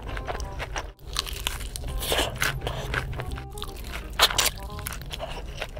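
Close-up crunching bites into crispy fried chicken skin, then chewing, with sharp loud crunches about two seconds in and again just after four seconds.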